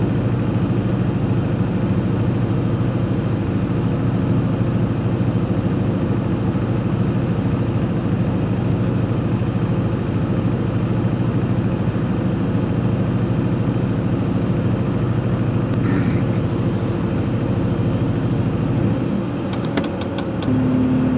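Mobile crane's engine running steadily, heard from inside the operator's cab. Near the end the engine note changes and a few sharp clicks sound.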